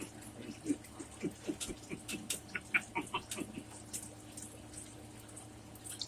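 Close-up chewing of a taco with a crunchy microwaved-cheese shell: a run of crisp crunches and mouth clicks, several a second, that dies away about halfway through.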